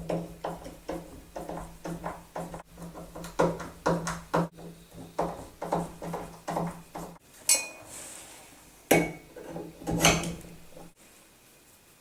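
Irregular metallic clinks and taps of door-handle hardware being fitted back onto the door, stopping about eleven seconds in.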